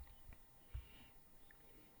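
Near silence: room tone with a couple of faint low thuds.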